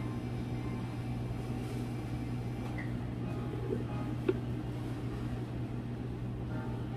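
Steady electric hum of café counter equipment, with a single light knock of glassware about four seconds in.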